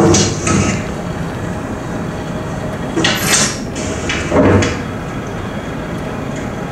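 A video's soundtrack played over the room's speakers: a steady rumbling noise with three short, louder bursts, one at the start, one about three seconds in and one about four and a half seconds in.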